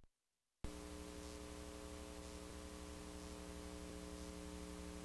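Steady mains hum with tape hiss from a VHS tape playing back its blank lead-in, switching on suddenly under a second in.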